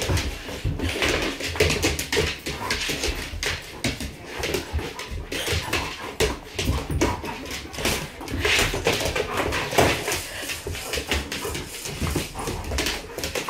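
Poodles playing boisterously, with dog vocal sounds mixed with many short knocks and scuffles from their jumping and tussling.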